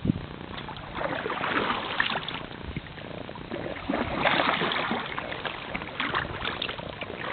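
Kayak paddle dipping and splashing in creek water, a stroke about every second, with a sharp knock right at the start.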